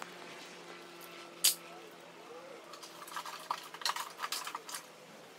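Metal hand tools clinking against each other and a steel toolbox: one sharp knock about a second and a half in, then a run of quick clinks and rattles in the second half. A faint steady hum lies underneath.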